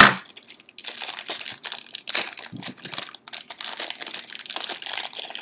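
A blind-pack bag crinkling and rustling as it is opened and a vinyl figure is pulled out, with a sharp click at the very start.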